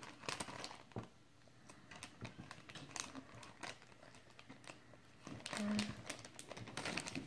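Foil blind-bag wrapper crinkling and tearing as it is pulled open by hand, in short scattered crackles.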